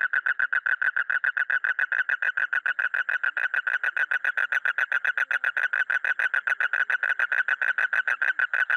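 Male toad calling with its throat sac inflated: one continuous, even trill of about ten pulses a second, fairly high-pitched and steady throughout.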